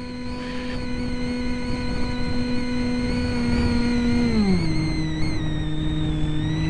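Brushless electric motor and propeller of an EasyStar RC plane, heard through its onboard camera: a steady whine that steps down in pitch about four seconds in as the motor slows, over a steady rushing noise.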